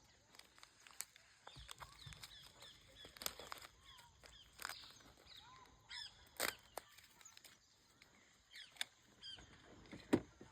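Forest birds chirping and calling in short curved notes, with scattered sharp clicks, the loudest near the end.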